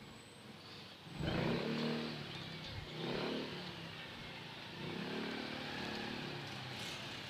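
Motorcycle and tricycle engines running and revving close by in slow street traffic. The engine sound rises sharply about a second in and comes and goes after that.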